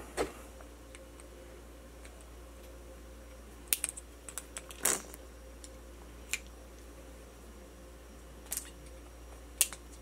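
Scattered light clicks and clinks of a small metal RC car wheel hub being handled and worked on its axle. There is a cluster of quick ticks about four seconds in, and single clicks later.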